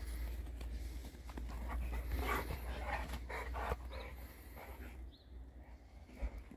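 Large mastiff-type dog panting hard during rough play, a run of quick breaths that is busiest in the middle and fades near the end, over a steady low rumble.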